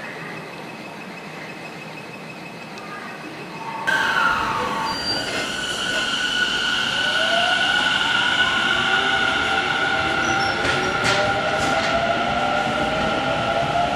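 Tobu 50050-series electric train pulling out of a station: after a few quiet seconds with a steady faint high tone, its traction motors whine in several tones rising in pitch as it accelerates, over rolling wheel noise and a steady high squeal.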